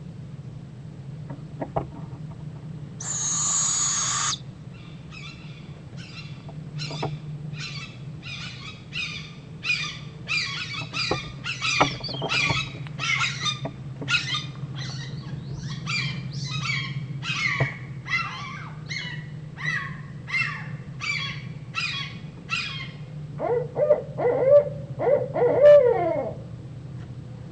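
A short, raspy hiss, then a long series of high calls from another bird, repeated evenly about twice a second. Near the end come a few louder, lower owl calls, typical of a barred owl.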